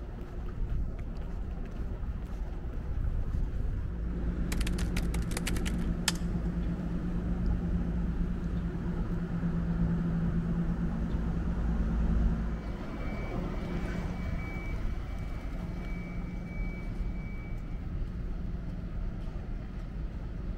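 Steady low engine hum, louder through the middle and dropping about twelve seconds in. A quick run of clicks comes about four to six seconds in, and a faint high whine is heard in the second half.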